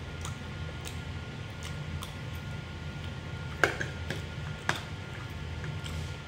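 Metal spoon and fork clinking and scraping against a plate of fried noodles as someone eats, with two sharper clinks at about three and a half and four and a half seconds in. A steady low hum underneath.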